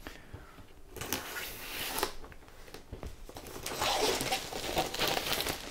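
Clear plastic shrink-wrap being slit with scissors and peeled off a cardboard box, crinkling and tearing in two spells: about a second in, and again from about three and a half seconds in.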